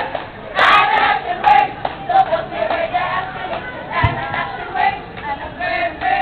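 A group of teenage students, mostly girls, chanting a school yell together in unison, in short loud phrases.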